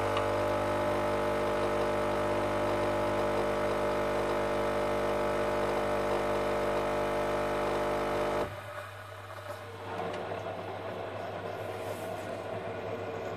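Pad coffee machine brewing: its pump hums steadily as coffee runs into the glass, then cuts off sharply about eight seconds in, leaving a quieter hiss as the last coffee runs through.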